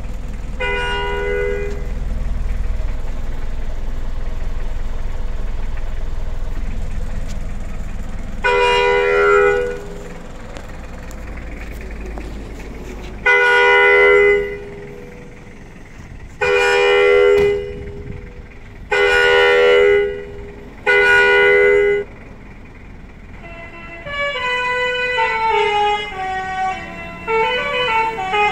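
A 500-watt electric basuri musical horn gives six blasts on the same chord, most about a second long. Near the end it plays a quick tune of stepping notes. A low rumble runs under the first half.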